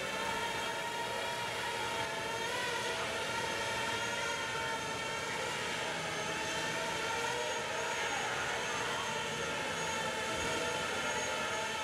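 Small quadcopter drone's motors and propellers whining steadily, several overlapping tones wavering slightly in pitch.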